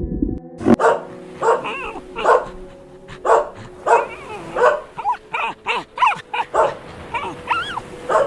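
A dog yipping and barking in a quick series of about fifteen short calls, some rising and falling in pitch.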